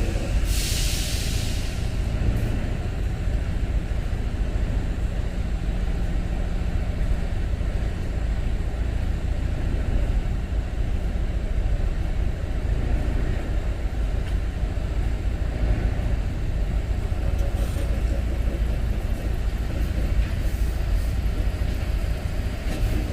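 Semi truck's diesel engine idling steadily, with a short hiss of released air about a second in.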